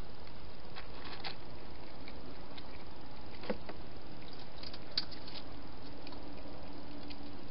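A domestic cat eating from a dish: scattered soft clicks and crunches of chewing over a steady hiss.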